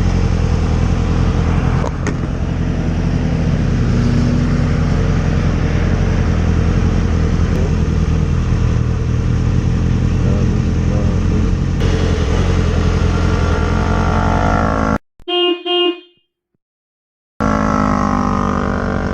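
Yamaha V Star 650's V-twin engine running steadily. Near the end the sound cuts out for about two seconds, with one short pitched tone in the gap.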